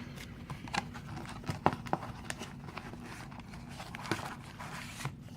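A product box being opened and its contents handled by hand: scattered sharp clicks, taps and short rustles of packaging, a few seconds apart.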